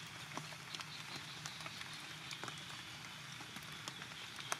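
Rain falling and dripping: a steady hiss with scattered, irregular drops tapping, one sharper tap near the end, and a faint steady high whine behind it.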